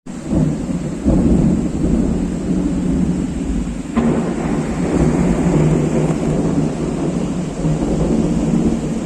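Thunder rumbling continuously over heavy rain, swelling about a second in, with a sharp crack about four seconds in.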